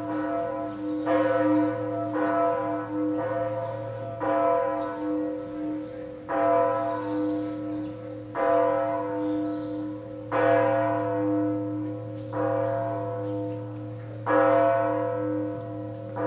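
The Lullusglocke, the eleventh-century bronze bell of Bad Hersfeld's Katharinenturm, ringing. Its clapper strikes about once a second, every other stroke louder, and each stroke rings on over a steady low hum.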